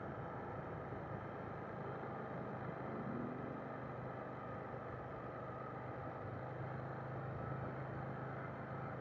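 KTM Duke 890 GP's parallel-twin engine running at riding speed, with wind noise over the microphone; the engine note grows a little stronger about six seconds in.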